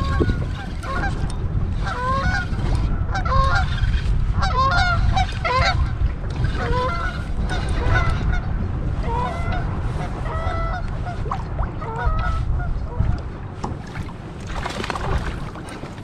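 A flock of geese honking, many short overlapping calls that thin out and stop about thirteen seconds in, over a steady low rumble of wind on the microphone. A brief rush of noise comes near the end.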